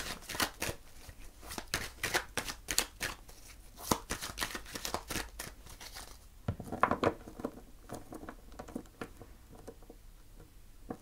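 A deck of oracle cards being shuffled by hand: quick, papery card slaps for about six seconds, then a brief cluster and a few sparser taps as the deck is gathered and squared.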